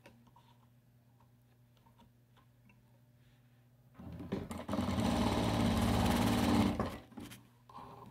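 Electric sewing machine stitching fabric scraps onto felt: a run of about three seconds starting about four seconds in, picking up speed, then stopping. A few light clicks follow near the end.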